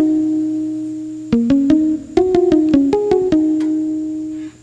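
Background music: a light melody of short, quick notes. A held note fades, then a fresh run of notes starts about a second in and settles on another long, fading note.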